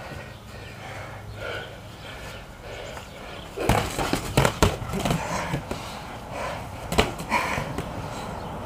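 Boxing gloves landing in a flurry of punches, a handful of sharp hits starting about halfway through and one more near the end, over heavy breathing and grunts from the sparring boxers.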